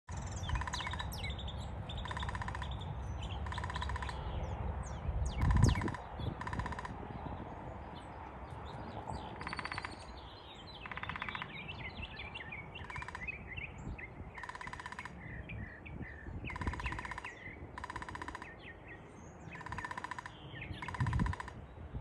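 Downy woodpecker drumming on a tree trunk: short, fast rolls of taps, one every second or two, about a dozen in all. Other birds chirp between the rolls.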